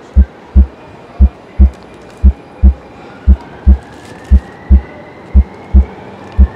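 Heartbeat sound effect: steady lub-dub pairs of deep, low thumps, about one beat a second. A faint thin tone slowly rises in pitch through the second half.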